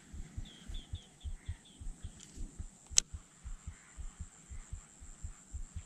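Handling noise from a baitcasting rod and reel being worked on a retrieve: soft low thumps, about four a second. A bird gives a quick run of short high chirps about half a second in, and a single sharp click comes about three seconds in.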